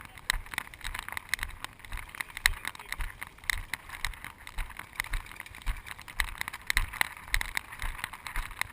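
Footsteps and gear rustle from a walking airsoft player: irregular short crunches and knocks, two or three a second.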